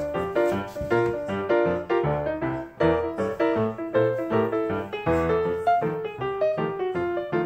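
Background piano music, a lively run of quick notes.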